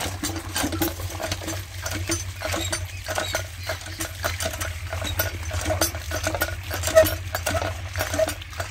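Hand pump (nalka) being worked by its lever handle: repeated metal clanks and short squeaks in a steady pumping rhythm.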